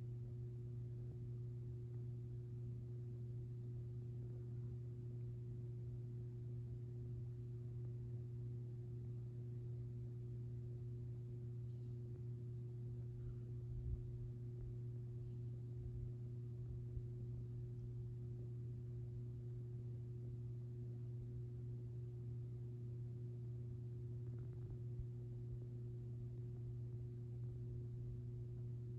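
Ceiling fan motor running with a steady low electrical hum, the same pitch throughout, over a faint low rumble.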